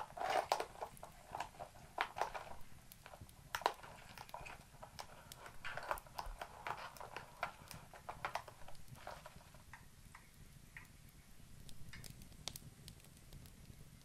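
Plastic straw stirring ice in a plastic iced-drink cup: scattered light clicks and rattles, thinning out after about nine seconds.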